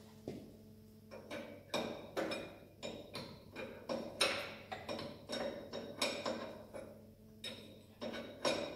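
Hand tools knocking and clinking on steel parts in an irregular run of sharp metallic taps, about two or three a second. Each tap rings briefly.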